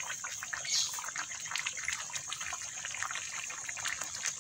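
Thick spice sauce with chicken heads and feet simmering in a wok, bubbling and popping in a dense irregular crackle over a steady high hiss.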